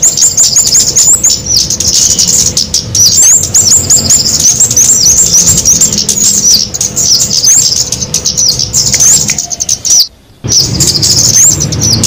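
Dense, rapid high-pitched chirps and ticks of small birds calling over one another: a bird-lure mix of cabean (flowerpecker), kemade and talokan calls. The chirping breaks off briefly about ten seconds in, then resumes.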